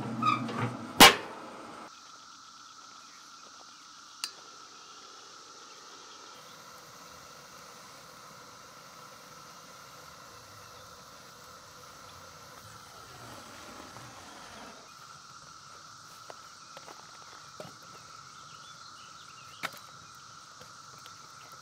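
A steel smoker lid shutting with one sharp bang about a second in, followed by a faint steady hiss with a thin high whine and a few small clicks.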